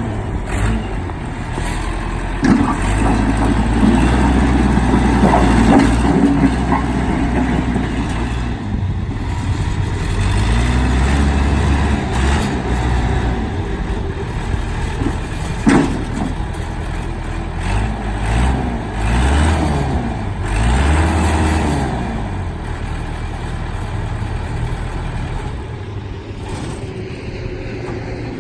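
John Deere 210C backhoe's diesel engine running, its pitch dropping and rising again several times as it revs under load, with a couple of sharp knocks.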